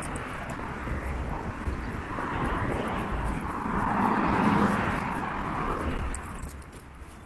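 A passing vehicle, its noise swelling to a peak about four to five seconds in and then fading away.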